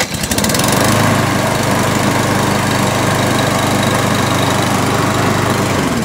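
Briggs & Stratton 675EXI single-cylinder mower engine starting from cold on the pull cord, coming up to speed within the first second and running steadily. Its choke now closes properly, since the stuck choke lever has been filed down. The engine note drops just before the end.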